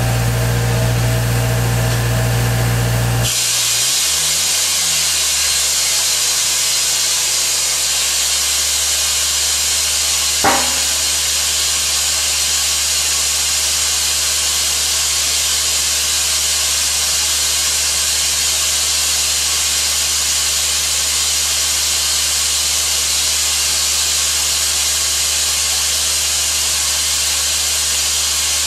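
An air compressor starts with a steady hum, and about three seconds in the compressed-air-powered Spillmaster 200 explosion-proof vacuum opens up with a loud, steady hiss of rushing air over a low hum, sucking up dry barley grass powder through its 50 mm hose. One short knock comes about ten seconds in.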